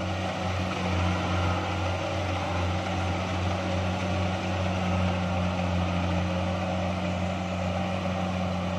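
Kubota DC-70 rice combine harvester running steadily while it cuts and threshes rice: an even, low diesel engine hum under a broad, steady mechanical noise.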